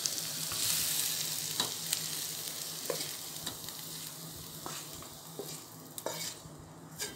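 Shallots, green chillies and curry leaves still sizzling in hot oil in a stainless steel pan, the sizzle fading as they are scraped out with a spatula, with scattered clicks of the spatula on the steel.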